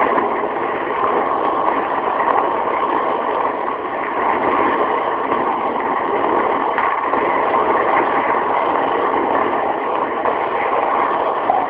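Steady hiss and rumble of an old, heavily worn recording's background noise, with no voice, during a pause in the recitation.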